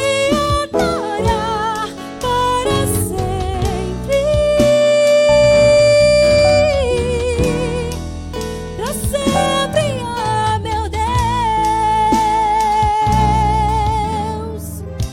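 Gospel band music: drums, bass, keyboard and acoustic guitar under a melody line of long held notes, some with vibrato.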